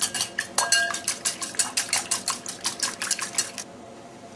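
A fork beating eggs in a bowl: quick, even clinks of metal against the bowl, about six or seven a second, stopping about three and a half seconds in.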